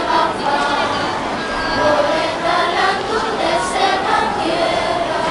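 Youth choir of children and teenagers singing together unaccompanied, holding sung notes that move from pitch to pitch.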